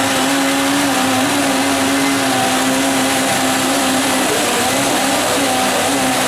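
Drill reaming out a rivet hole in a steel hull plate, its motor running steadily with a strong hum whose pitch sags slightly now and then as it is pressed up into the hole.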